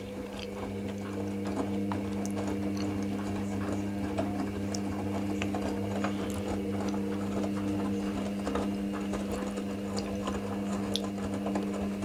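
Hoover Nextra front-loading washing machine turning its drum in the wash, the motor humming steadily while a load of wet towels tumbles and sloshes with a scatter of small knocks.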